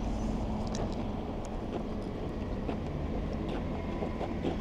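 Two Ducati V4 motorcycles idling with a steady low rumble.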